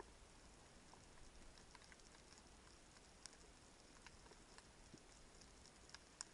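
Faint underwater ambience heard through an action camera's waterproof housing: a low rumble with scattered small clicks and crackles.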